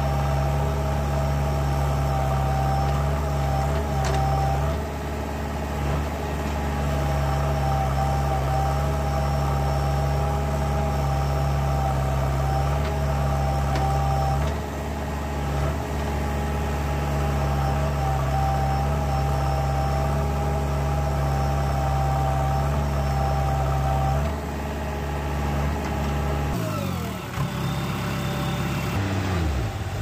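Diesel engine of a JCB 3DX backhoe loader running steadily, with a steady high whine over it. The note eases off briefly a few times. Near the end the engine note drops and then shifts in a falling-then-rising glide.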